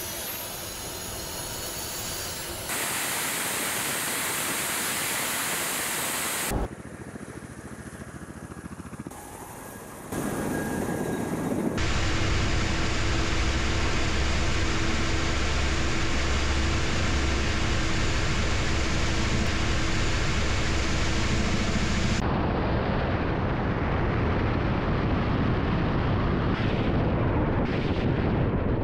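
Ka-52 attack helicopter's turbine engines and coaxial rotors running, in several clips joined by abrupt cuts. At first a rising turbine whine, then heavy steady engine and rotor noise with a steady hum, loud inside the cockpit.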